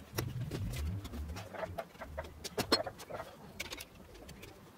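Clicks and light knocks of hands handling the plastic wiring connector and metal frame of a copier fuser unit, with a low intermittent hum underneath.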